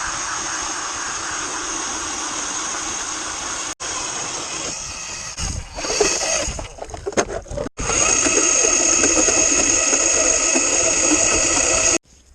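Power ice auger running as it bores holes through lake ice, in several short clips joined by hard cuts; the loudest stretch starts about eight seconds in.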